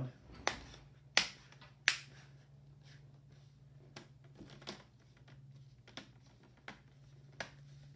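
Plastic laptop screen bezel being pressed back on, its clips snapping into place with sharp clicks one at a time. The loudest two come about one and two seconds in, followed by lighter clicks every second or so. A low steady hum runs underneath.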